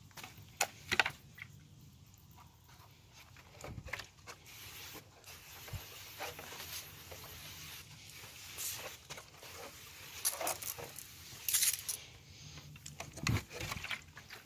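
Footsteps and handling knocks on dirt, then a long high hiss with several louder surges, typical of an aerosol spray-paint can writing a graffiti tag on a wall. More knocks and footsteps follow near the end.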